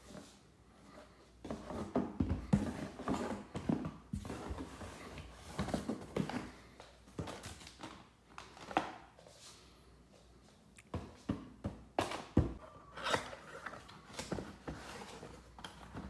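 Packaging and parts being handled while unboxing: irregular rustling with scattered knocks and clicks.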